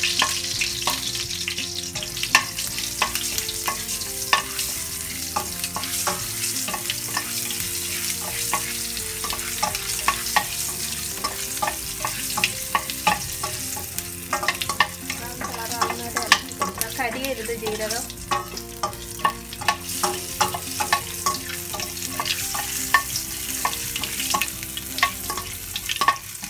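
Cumin seeds sizzling in hot oil in a stainless steel kadai, with a steady hiss, while a metal spoon stirs them, clicking and scraping against the pan many times. This is the tempering stage, with the cumin frying until it turns brown.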